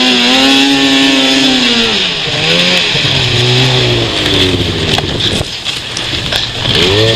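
Two-stroke snowmobile engine revving up and down, its pitch rising and then falling, over steady wind and track hiss. A few sharp knocks and thuds come about five to six seconds in as the rider bails off into the snow. The engine pitch rises again near the end.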